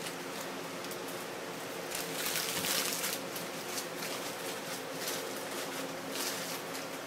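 Crumpled magazine paper crinkling in irregular bursts, loudest about two to three seconds in and again briefly near the end, over a steady low electrical hum.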